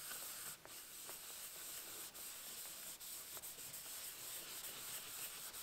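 Cloth rubbing back and forth over a wooden board, buffing off a coat of oil finish: a faint, steady scrubbing hiss.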